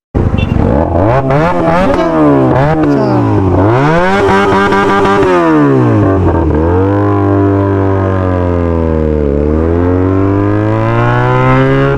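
Motorcycle engine revved up and down several times, its pitch rising and falling with the throttle, then held at a fairly steady speed before climbing again near the end.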